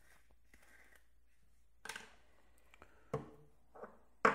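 A few sharp clicks and knocks of a syrup bottle, its screw cap and a small measuring glass being handled and set down on a countertop. The loudest knock comes at the very end.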